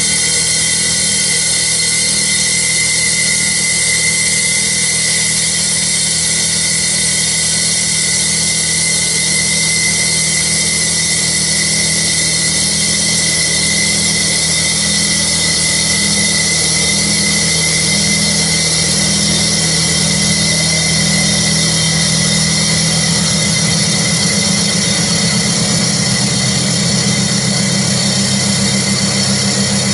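Alloy wheel CNC lathe running steadily: a low machine hum with a steady high-pitched whine over it and a hiss, the hum changing slightly near the end.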